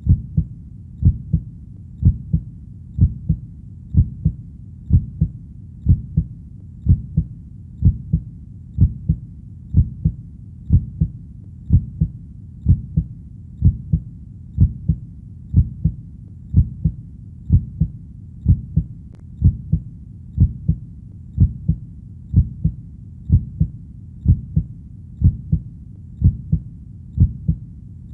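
Heartbeat beating steadily at about one beat a second, each beat a low double thump (lub-dub).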